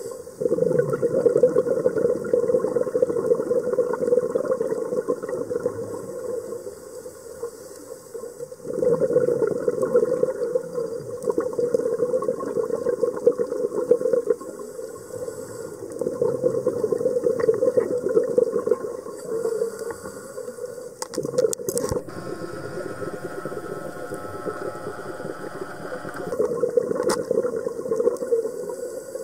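Scuba diver's exhaled bubbles gurgling out of the regulator, heard underwater through the camera housing, in long surges every several seconds with quieter inhale pauses between. A few sharp clicks about two-thirds of the way through and again near the end.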